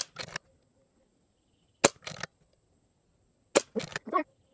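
Brocock BRK Sniper XR Sahara .22 PCP air rifle firing three shots, a sharp crack about every second and three-quarters. Each crack is followed about a fifth of a second later by the pellet striking the target.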